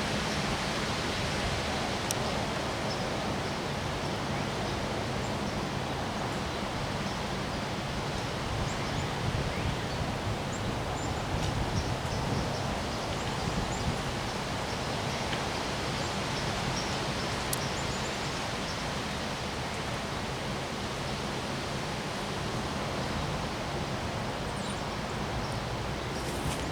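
Wind blowing steadily: an even rushing noise that stays level throughout, with a couple of faint ticks.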